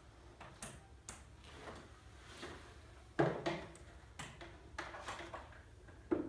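Irregular knocks and clatters from forearm crutches and a wheeled office chair on a wooden floor as a person moves about on them. The loudest knock comes about three seconds in and another near the end.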